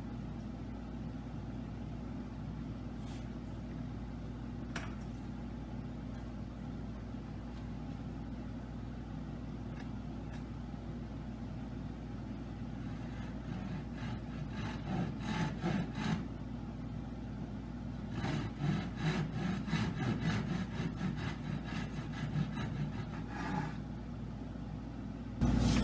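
Hand saw cutting wood with repeated back-and-forth strokes, in two runs with a short pause between, starting about halfway through, over a steady low hum.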